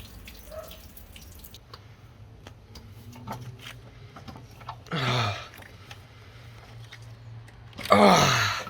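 Old engine oil dripping and trickling from the sump into a drain pan during an oil change, with scattered small clicks. Two short sounds falling in pitch stand out, about five seconds in and, louder, about eight seconds in.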